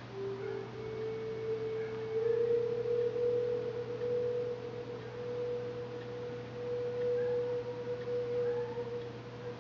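A steady pure tone held for several seconds, starting a little lower and settling slightly higher about two seconds in, over a steady low hum.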